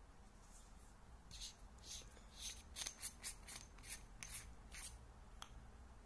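Tail cap of a Sofirn C8F flashlight being unscrewed: about ten short scraping rasps from the metal threads, then a single sharp click near the end.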